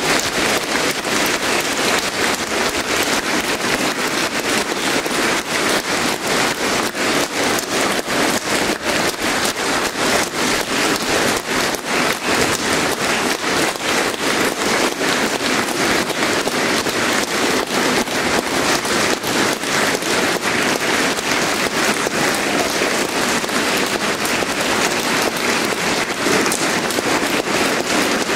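Audience applauding at length after the final piece, a dense, steady clatter of many hands echoing in a large church.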